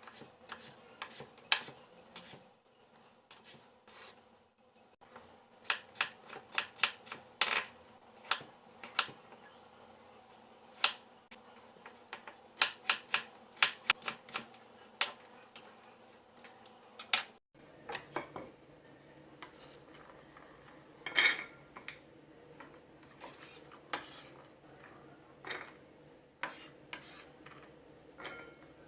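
Kitchen utensils and dishes handled during cooking prep: irregular sharp clicks, taps and scrapes over a faint steady hum. The background hum changes abruptly a little past halfway.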